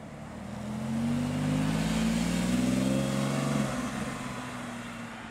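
Porsche 911 flat-six engine as the car drives slowly past and away, its note swelling to loudest just past the middle with a slight rise in pitch, then fading.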